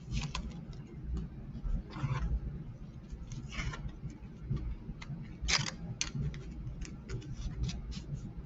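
Football trading cards and pack wrappers being handled on a table: scattered light clicks and taps with four short rustling swishes.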